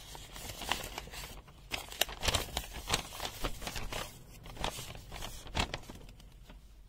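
Crinkling and rustling of a paper user manual being picked up and unfolded by hand, in irregular crackles that are busiest in the middle.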